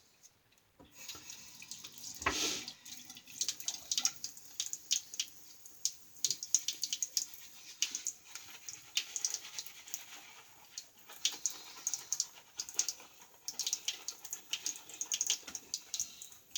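Synthetic shaving brush working wet lather cream into a lather, a fast uneven wet crackling and swishing, with a short splash-like burst about two seconds in.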